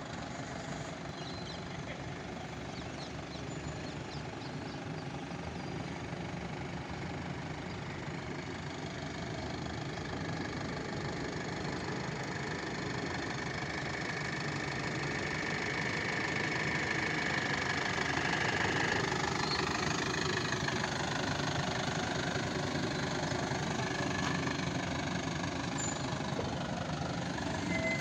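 Diesel engine of an Eicher Starline bus running at low speed as the bus manoeuvres slowly in tight turns, growing louder as it draws close about two-thirds of the way through. A short sharp click right at the end.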